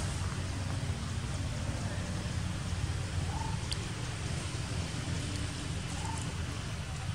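Steady outdoor background noise: an even hiss over a constant low rumble. A short faint chirp comes twice, about every two and a half seconds, and there is a faint click near the middle.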